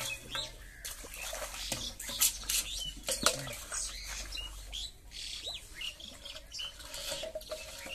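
Water splashing and sloshing as a man wades through a pond, with birds chirping in the background. Two sharp knocks stand out a little after two and three seconds in.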